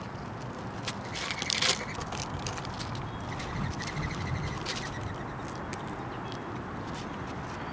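Fox squirrel feeding on a platform feeder: scattered small clicks of seed being picked through and cracked, over steady outdoor background noise, with a brief louder sound about one and a half seconds in.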